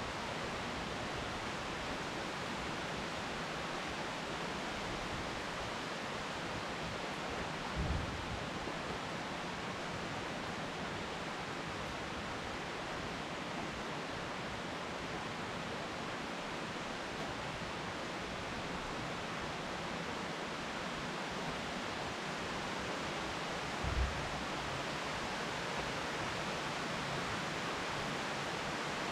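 Steady rain falling, an even hiss with no break. Two brief low thumps sound over it, one about a quarter of the way through and one about three-quarters of the way through.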